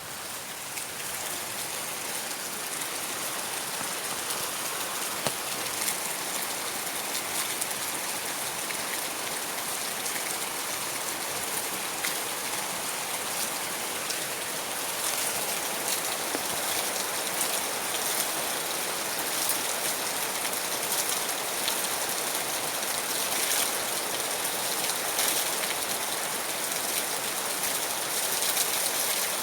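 Steady rain falling: a dense, even hiss with scattered sharp taps of individual drops. It fades in over the first couple of seconds.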